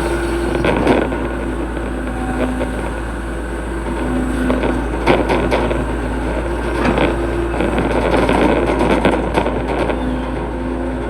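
Hitachi hydraulic excavator at work digging a ditch: its diesel engine drones steadily, with short steady tones that come and go as it works, and scattered clunks and knocks.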